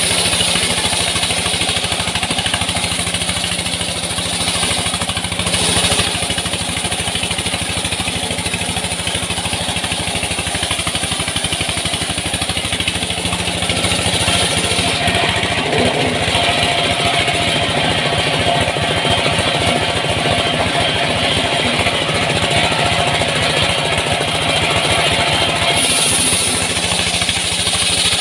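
Small petrol engine of a wood saw running steadily at speed, with a change in its higher sound about halfway through and again near the end.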